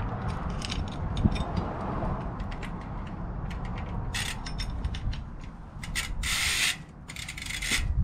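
A steel bicycle roller chain being handled and fed onto a BMX bike's rear sprocket: the links click and rattle, followed by several short scraping rustles in the second half.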